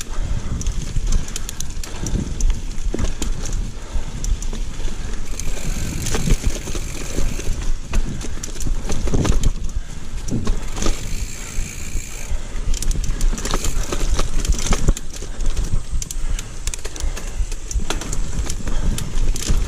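Giant mountain bike ridden along a rooty dirt trail: tyres rolling over a low rumble, and the chain and frame clicking and rattling throughout. The rider finds this clacking excessive for a bike under a year old. A brief high steady tone sounds a little past halfway through.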